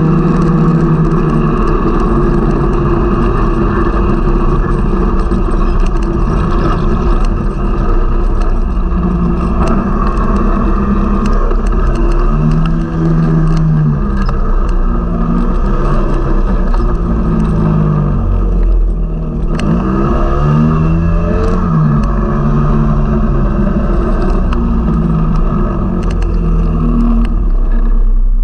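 Snowmobile engine running under way. Its pitch dips and climbs back several times around the middle as the throttle is eased off and opened up again.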